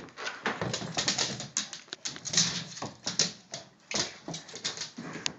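A dog snuffling and nosing right against the microphone: rapid, irregular rustling and clicking bursts.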